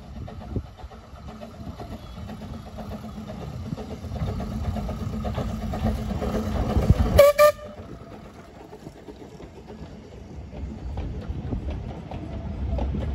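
Narrow-gauge steam locomotive hauling coaches, its running growing louder as it approaches. About seven seconds in it gives a short, loud whistle toot. The coaches then roll past more quietly.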